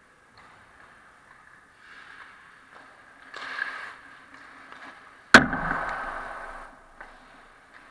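Hockey skates scraping and carving on the ice, with a few louder scraping stops. About five seconds in, a single loud, sharp crack rings out as a hockey puck hits hard near the net, then fades over about a second.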